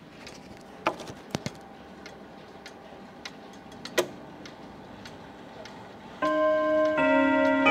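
Jura clock chime with eight brass rod gongs and eight hammers. A few scattered clicks and light knocks come first; then, about six seconds in, the hammers strike the first two notes of the chime about a second apart, and both go on ringing.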